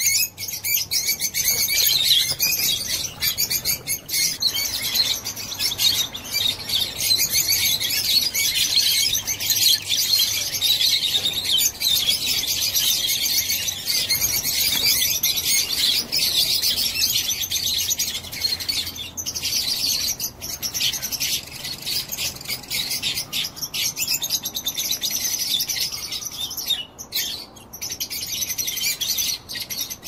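A flock of lovebirds chattering, many birds at once, giving a steady, high-pitched twittering.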